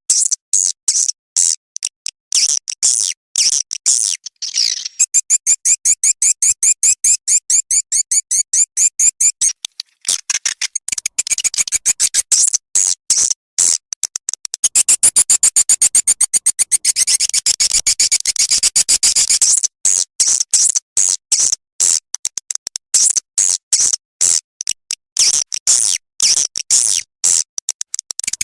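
Swiftlet lure-call recording: rapid trains of high-pitched chirps and clicking twitters in short bursts, with longer unbroken trilling stretches from about 5 to 10 seconds in and again from about 15 to 19 seconds. This is the kind of call track played in swiftlet houses to draw the birds in to roost and nest.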